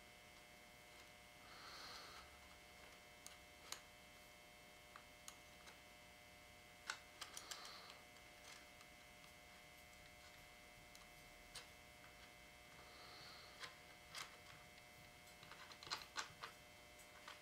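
Scattered faint metallic clicks and light scrapes of a small steel tool working against the slotted stock nut inside a Winchester 1903 rifle's buttstock, with a few soft rustles, over near silence. The clicks come irregularly and bunch together near the end.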